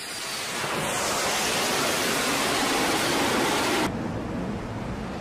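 Jet aircraft launching from an aircraft carrier deck: a loud, steady jet-engine rush that builds over the first second. It cuts off suddenly about 4 seconds in and gives way to a lower wind and sea noise.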